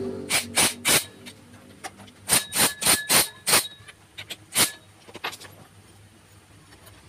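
Cordless impact wrench hammering in short trigger bursts on a motorbike's clutch centre nut, tightening it: three quick bursts, then five more in a row, then one or two fainter ones.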